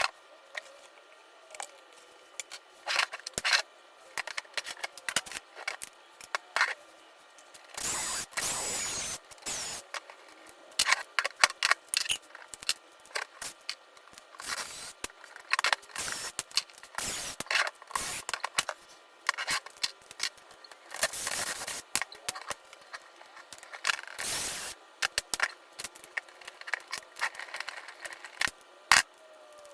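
Dense clicking and clattering of hand tools and plastic parts as screws are undone and the plastics and skid plates come off a 1/5-scale RC truck chassis. Three longer rasping stretches break into the clicking.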